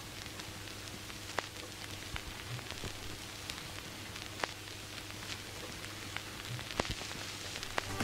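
Steady hiss with a faint low hum and scattered crackling clicks, a few a second.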